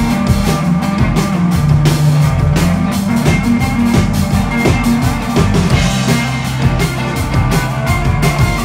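Indie rock band playing live: electric guitars, keyboard and a drum kit keeping a steady beat.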